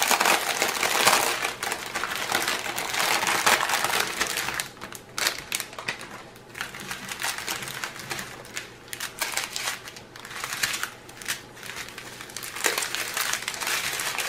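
Small plastic bags of diamond painting drills crinkling as a strip of them is unrolled and spread out by hand: dense crinkling for about the first four seconds, then sparser crackles as the bags are laid flat.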